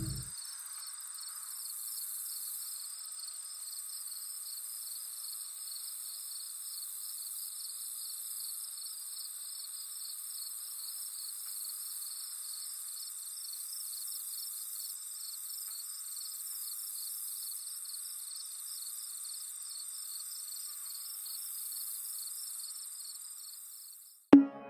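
Insects chirping: a rapid, pulsing high trill with a steady thin whine above it, fading out near the end.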